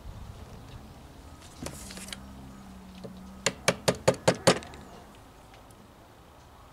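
Six quick, sharp metallic clicks in about a second from the rotary hook assembly of a Singer 306 sewing machine being worked by hand while its end shake is adjusted, after a brief rustle of handling.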